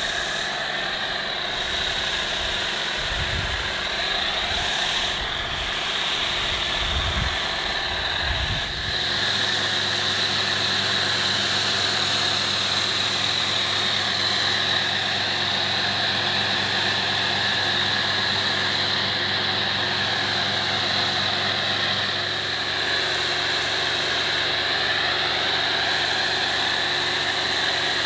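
Pressure washer running steadily, its motor humming under the constant hiss of a foam cannon spraying snow foam.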